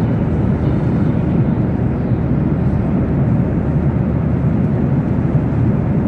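Steady low rumble of noise inside an airliner cabin, from the engines and the air around and within the plane, heard from a window seat.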